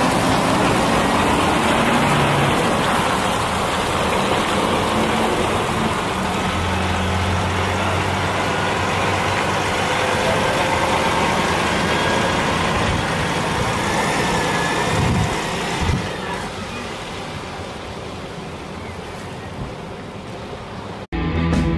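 Heavy DAF trucks' diesel engines running as the lorries drive slowly past at close range, growing quieter about 16 seconds in. Near the end the sound cuts off abruptly into music.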